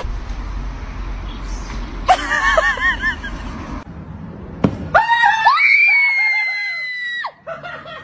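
Wind rumbling on the microphone for the first few seconds, with a short run of high, wavering calls about two seconds in. Just before five seconds comes a thump, then a long, high-pitched scream lasting about two seconds.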